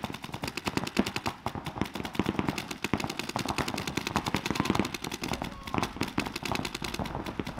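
Paintball markers firing rapidly from several guns at once: a dense, unbroken stream of sharp pops, many a second.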